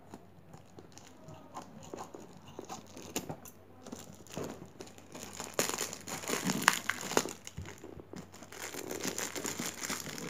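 Courier mailer package crinkling as it is handled and turned over in the hands, with irregular crackles that grow busier and louder about halfway through.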